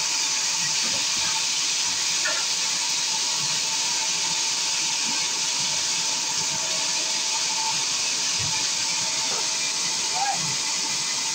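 Large sawmill band saw running steadily between cuts, its blade turning without wood in it: an even hiss with a thin steady whine.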